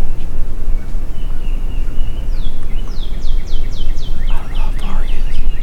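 Wind buffeting the microphone with a heavy low rumble. About halfway through, a songbird sings a quick series of downward-slurred whistled notes, several a second.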